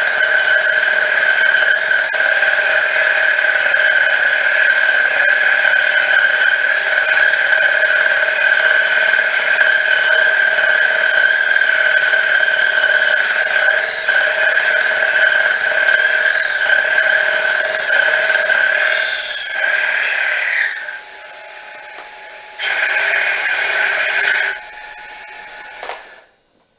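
Boring head with a brazed carbide bit cutting the bore of a V-belt pulley on a mini mill, making a loud, steady, high-pitched whine. The cut stops about 21 seconds in, starts again for a second or two, then stops.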